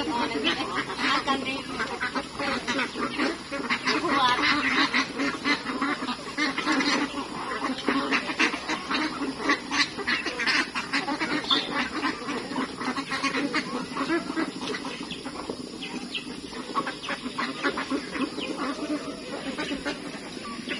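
A flock of domestic ducks quacking continuously as they crowd in to feed, many calls overlapping, a little less busy in the second half.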